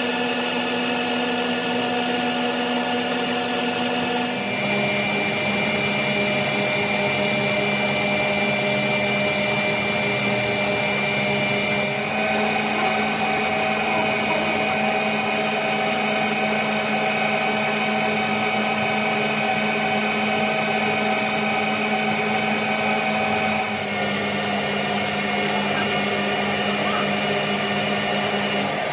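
Metalworking machinery running with a steady whine of several held tones. The pitch pattern jumps abruptly about 4 seconds in, about 12 seconds in and about 24 seconds in, as if from one machine or setting to another.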